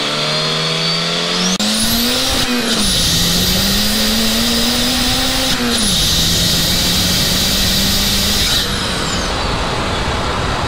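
Turbocharged Volvo B200FT four-cylinder accelerating hard under boost through two gears, engine pitch climbing and dropping at each upshift, with the Holset turbo's high whistle rising on each pull. It then settles to a steady cruise and the turbo whistle fades away.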